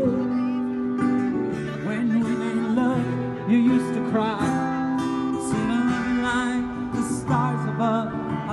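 A street busker playing acoustic guitar, with a singing voice carrying the melody over it.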